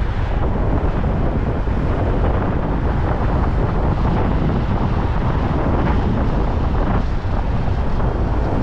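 Steady wind buffeting the microphone of a camera on a moving car, a loud low rushing noise with no distinct tones.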